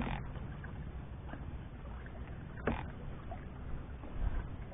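Canoe moving on open water: water lapping against the Old Town Discovery 133's hull over a steady low rumble, broken by two sharp knocks about two and a half seconds apart, in time with paddle strokes.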